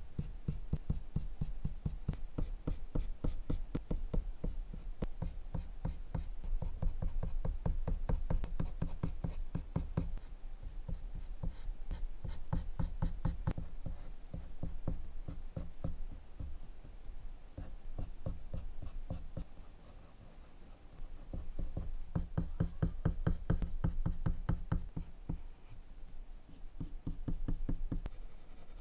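Prismacolor colored pencil scratching on drawing paper in quick, short repeated strokes, several a second, as fur is shaded. The strokes ease off briefly about two-thirds of the way through, then pick up again.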